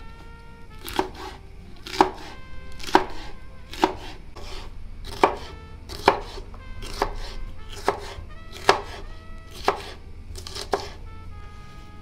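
Kitchen knife chopping green pepper on a plastic cutting board: about eleven sharp knocks of the blade on the board, roughly one a second.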